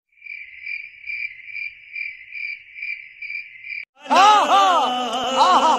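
Cricket chirping sound effect, a steady high trill pulsing about two and a half times a second, the stock gag for an awkward silence. About four seconds in it stops and loud chanting voices over music break in.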